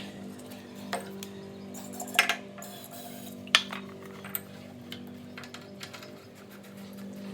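Scattered sharp metallic clicks and clinks of a spark plug and tools being handled on a Briggs & Stratton Classic lawnmower engine during a spark check. The sharpest come a little after two seconds and at about three and a half seconds, over a steady low hum.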